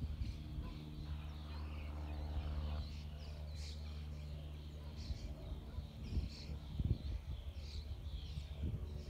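Small birds chirping and calling again and again, over a steady low hum and a few low bumps of wind on the microphone near the end.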